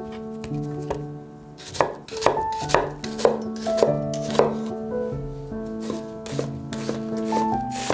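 Chef's knife chopping a peeled onion on a wooden cutting board, the blade striking the board about twice a second from about two seconds in, over soft background music.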